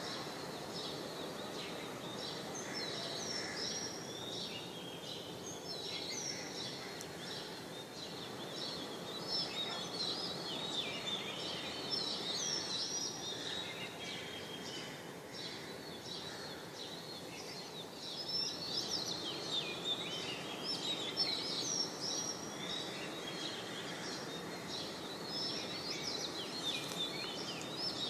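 Many small birds chirping and singing at once in morning birdsong: quick, high chirps and short glides that overlap continuously, thickest in the second half. Under them runs a steady, low background noise.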